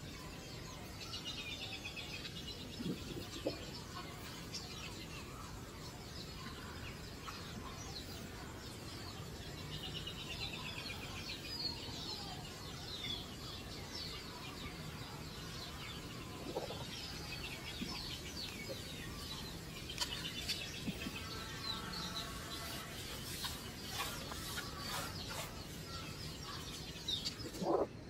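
High-pitched chirping and squeaking calls that come in short, rapidly repeated bursts, on and off throughout, with a few brief lower calls.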